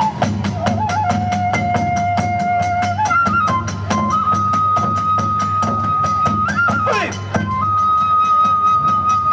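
Kagura festival music: a bamboo transverse flute holds long notes that step up and down in pitch, over a steady drum and a fast, even beat of sharp metallic strikes from small hand cymbals.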